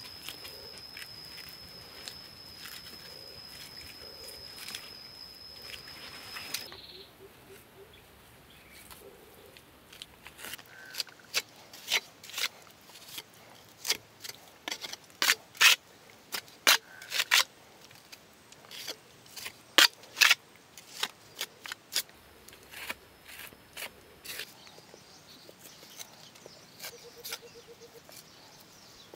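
Small trowel working wet mud plaster onto a stick frame: irregular sharp clicks and scrapes as the blade taps and drags over the mud and sticks, thickest in the middle of the stretch. A steady high whine runs through the first few seconds and cuts off suddenly.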